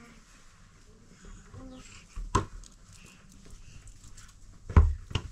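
A plastic ball being passed between hands on a carpeted floor, with dull thumps: one about two seconds in and two close together near the end.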